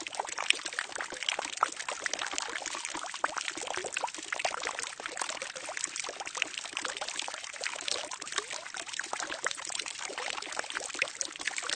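Water pouring and trickling steadily into a barrel, a continuous splashing stream with many small drips and splashes.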